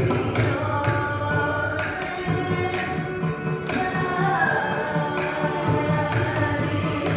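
Carnatic music: a woman singing a melodic line, shadowed by a bowed violin, with mridangam strokes falling irregularly through it.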